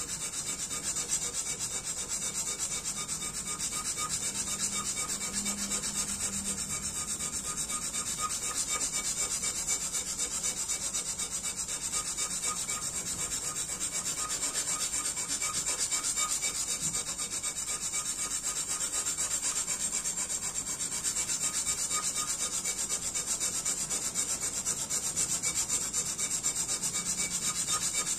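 Steel tanto blade rubbed back and forth on a whetstone, a steady scraping with a bright hiss and no pauses, as the blade's tip (kissaki) and yokote line are ground into shape.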